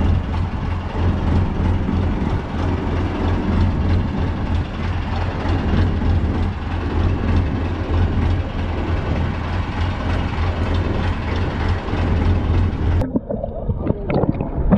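Fishing boat's engine running steadily with a deep, even hum. It cuts off abruptly about thirteen seconds in, giving way to a thinner, quieter sound.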